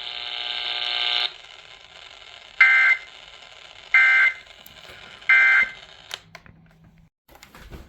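Emergency Alert System end-of-message signal: three short, harsh digital data bursts about 1.3 seconds apart, marking the close of the alert. They are preceded by a steady buzzing tone that stops a little over a second in, and a few faint clicks follow near the end.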